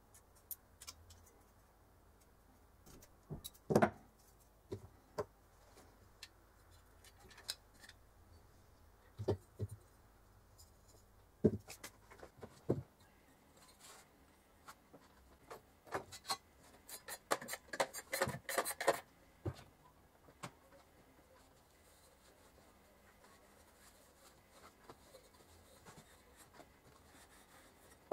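Scattered light clicks and knocks of old oil-lamp parts, a metal chimney holder and a glass chimney, being handled on a workbench. A quick run of clicks comes about two-thirds of the way through.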